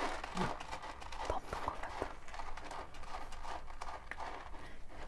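Irregular light scratching and tapping of a kitten's paws digging in a litter box.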